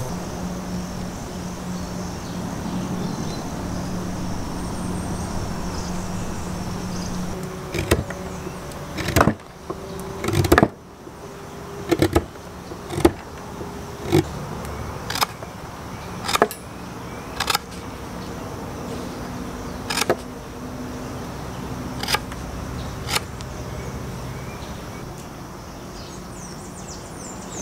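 A steady low hum for the first several seconds. Then a sheath knife carving a point on a green forked branch: about a dozen sharp, separate cuts, roughly one a second, as the blade takes chips off the wood.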